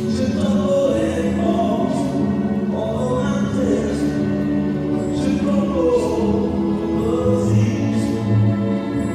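Choral music: a choir singing over a steady pulsing bass note.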